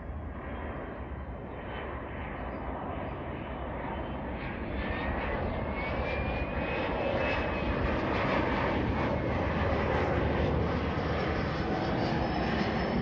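Cessna Citation Latitude business jet's twin turbofan engines passing overhead on approach with the landing gear down: a steady jet rumble that grows louder through the first eight seconds or so, with a high turbine whine rising in pitch about five seconds in.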